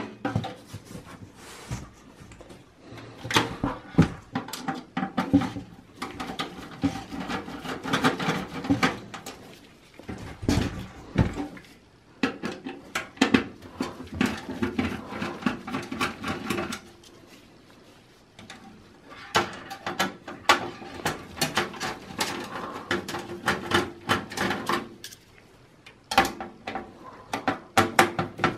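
Hand screwdriver turning out motherboard screws in a steel PC tower case: clusters of clicks, scrapes and small metal rattles come in bursts with short pauses between screws.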